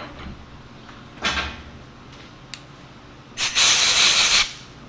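Compressed-air blow gun blasting for about a second near the end, blowing off the freshly threaded steel stud in the lathe chuck. A shorter, fainter burst of noise comes about a second in.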